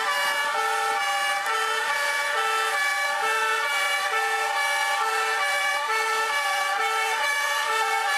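Many fire engine sirens sounding together in a parade column, overlapping at different pitches. Each siren switches back and forth between a high and a low note about once a second, and a siren glides in pitch about a second in.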